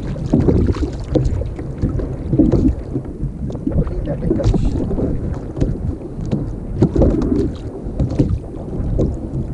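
Sea water lapping and slapping against a plastic sit-on-top kayak hull, uneven and low-pitched, with many small knocks and clicks scattered through it.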